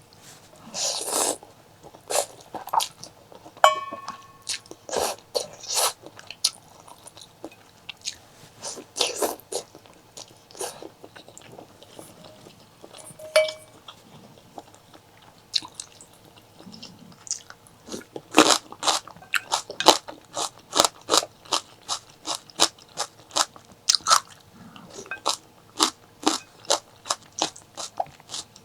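Close-miked eating: crisp, crunchy bites and chewing with wet mouth clicks, sparse at first, then a steady run of about two chews a second from about two-thirds of the way in.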